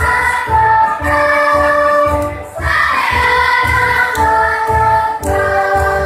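Children's choir singing a march song to electronic keyboard accompaniment with a steady beat of about two pulses a second.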